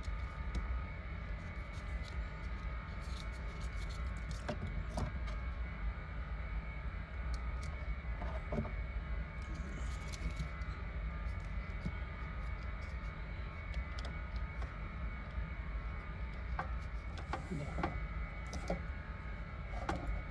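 Steady low hum with a faint whine above it, under scattered small clicks and rustles of a plastic wiring connector and wires being handled.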